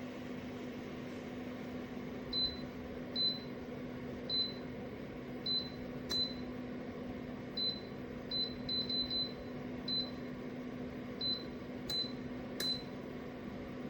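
Portable PTC space heater's fan running with a steady hum, while its controls give about fourteen short, high beeps at irregular intervals, several in a quick run near the middle.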